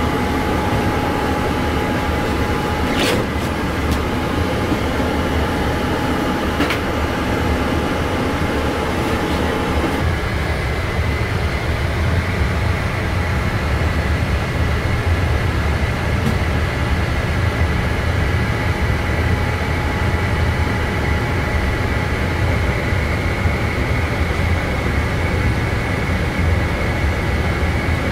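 Steady ambient noise on a Boeing 787 flight deck: a constant low rumble of airflow and ventilation with a faint steady whine. Light clicks come about 3 and 7 seconds in, and a mid-pitched hum drops out about ten seconds in.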